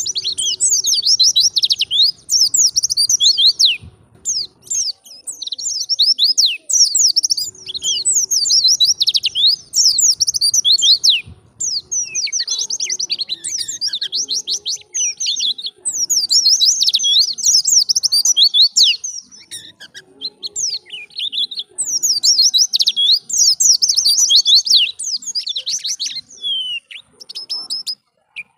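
White-eye (pleci) singing a fast, high twittering song of rapid chirps, in phrases a few seconds long separated by short pauses.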